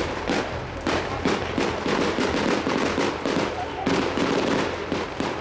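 Aerial firework shells bursting in a rapid series of bangs, about two a second, with crackling stars. Crowd voices underneath.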